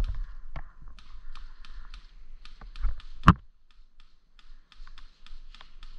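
Dry leaves crackling and small gear clicks as an airsoft player shifts a rifle while lying in leaf litter, with one sharp crack about three seconds in.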